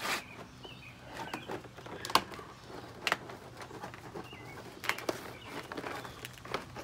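Scattered sharp clicks and taps of a vinyl siding outside-corner piece being pressed into the siding's channels, with faint bird chirps in the background.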